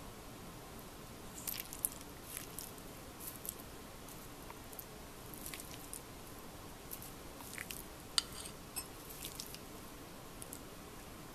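Quiet eating sounds: scattered small clicks and crunches as chopsticks work through a plate of stir-fried pork tongue, bean sprouts and leek, over a faint steady hiss.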